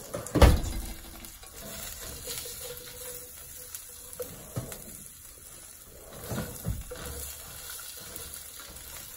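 Fingerling potato pieces sizzling in oil in a skillet on a propane stove. A loud thump comes about half a second in, and a few knocks from a spatula turning the potatoes come in the second half.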